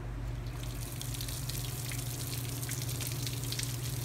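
Garden-hose water running through flush muffs on a Mercury 20 hp outboard's lower unit and splashing and spattering onto pavement, starting about half a second in. A steady low hum runs underneath.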